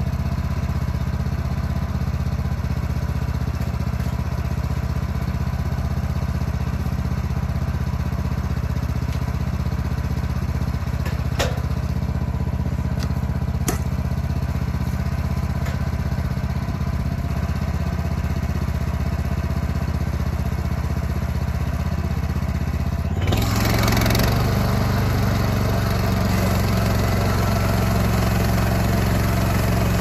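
An engine running steadily, with a couple of light clicks; about 23 seconds in it abruptly grows louder and busier and keeps running at that higher level.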